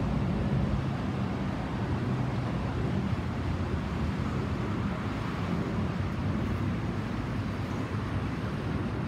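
Steady, distant low rumble of an Airbus A320-216's CFM56 jet engines passing high overhead, blended with street traffic noise.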